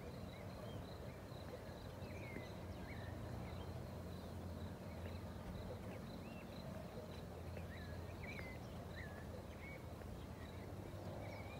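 Birds chirping outdoors, faint: short scattered calls come every second or so over a steady, rapidly pulsing high note and a low hum.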